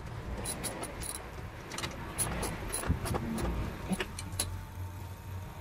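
Scattered light clicks and taps of a gloved hand fitting wire connectors and handling small metal parts on engine-bay wiring, with a low background hum.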